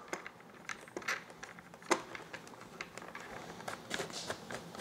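Scattered faint clicks and ticks, one louder click just under two seconds in, of a small screw being handled and driven by hand with a small screwdriver into the plastic mount at the tail of a foam model jet.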